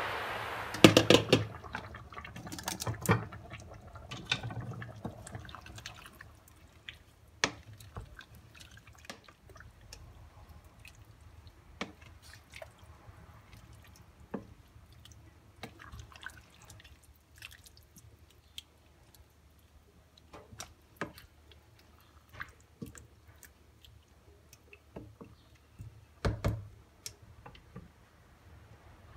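Green bean, tomato and potato stew simmering in a stainless steel pot, with scattered soft pops and drips. A few louder knocks of the lid and a wooden spoon against the pot, the loudest about a second in and another cluster near the end.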